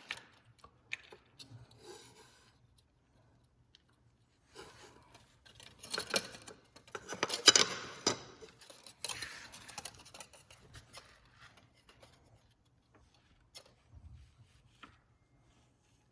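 Handling noises from small light objects: scattered clicks with rubbing and scraping, busiest and loudest about halfway through.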